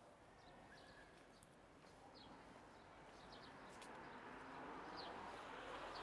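Near silence: faint outdoor ambience with a few short bird chirps.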